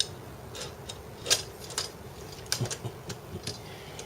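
Irregular light clicks and taps of small hardware and parts being handled during 3D printer assembly, with a sharper click about a second in.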